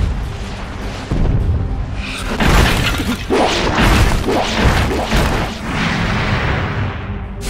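Anime battle soundtrack: dramatic background music under repeated heavy crashes and booms, over a deep rumble.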